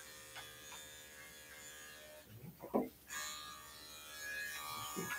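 Electric dog grooming clippers running steadily through a cocker spaniel's coat. The hum stops for under a second a little after two seconds in, with a short, louder sound in the gap, then starts again.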